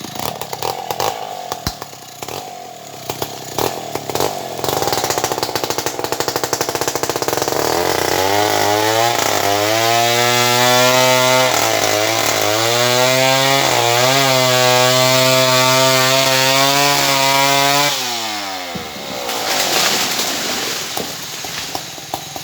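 Stihl 070 chainsaw, a large two-stroke saw, running throughout. From about a third of the way in it holds high revs with a steady pitch that sags several times as the chain bogs in the cut. Near the end the throttle is released and the pitch falls away to a lower, rougher running.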